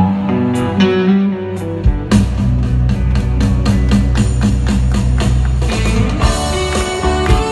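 Live rock band playing a slow instrumental, with electric guitar and saxophone carrying the melody. A full drum kit and bass guitar come in about two seconds in and keep a steady beat.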